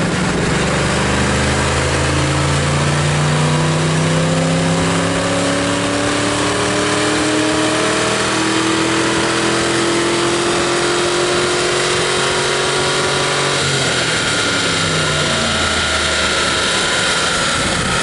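1997 Mustang GT's 4.6-litre V8 making a dyno pull on a chassis dyno's rollers. The engine note rises steadily for about 13 seconds, then drops and winds down as the run ends.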